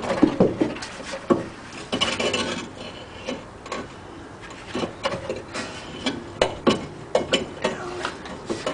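Scattered knocks, clunks and scraping as a coil-spring rear strut assembly is worked loose and manoeuvred out of the wheel well, catching on the emergency brake cable.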